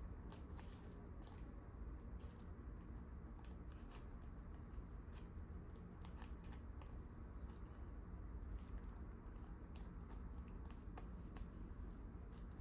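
Trading cards being handled and slid against one another, giving faint, irregular clicks and light rustles over a low steady hum.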